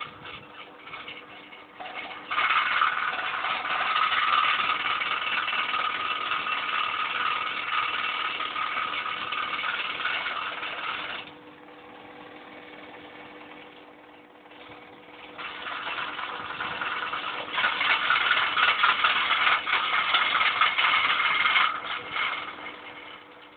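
Small electric gear motors of a homemade wheeled robot whirring with a rattle as they drive it across a tile floor. They run for about nine seconds, drop away for a few seconds, then run again for about six seconds.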